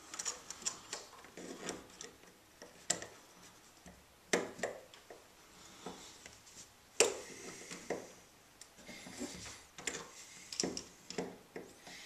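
Pliers twisting 16-gauge wire tight around a screw head: a scatter of small metal clicks and scrapes, with two sharper knocks about four and seven seconds in.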